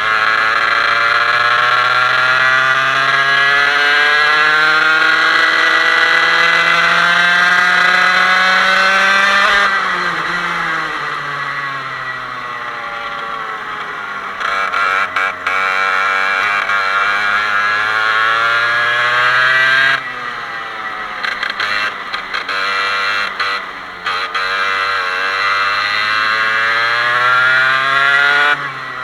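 Mini kart's 125cc Parilla two-stroke engine being driven around a lap: it revs up in one long climb in pitch for about ten seconds and then falls off as the throttle is lifted. It climbs again, drops about two-thirds of the way through, and climbs once more before falling near the end.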